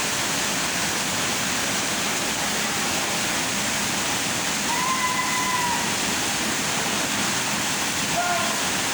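Waterfall pouring into a plunge pool: a steady, even rush of falling water. Two faint brief calls rise above it, one about five seconds in and a shorter one near the end.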